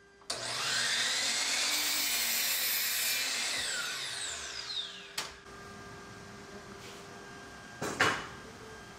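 A sliding compound miter saw starts up with a rising whine and runs at full speed while it cuts through a wooden board. When the trigger is released, the blade winds down with a falling whine. A short click follows, and a sharp knock near the end is the loudest moment.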